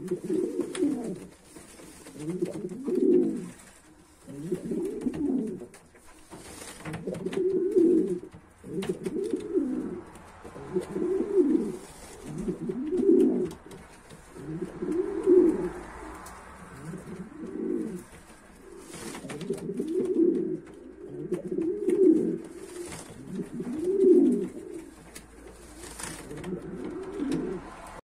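Domestic pigeons cooing in a loft nest box: a low, rolling coo repeated about every two seconds.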